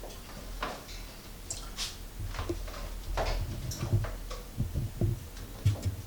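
Irregular knocks, taps and short rustles of firework boxes being handled and shifted about.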